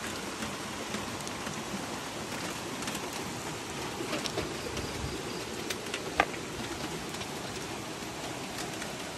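Dry dog kibble rattling in a plastic slow-feeder bowl as it is carried and lowered, then a sharp knock about six seconds in as the bowl is set down on the dirt. A steady hiss runs underneath.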